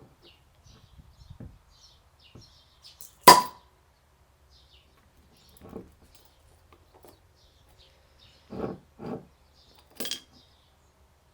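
A Flensburger swing-top beer bottle is popped open: one sharp pop with a brief ring about three seconds in. Softer knocks follow, then another sharp clink near the end. Faint bird chirps sound in the background.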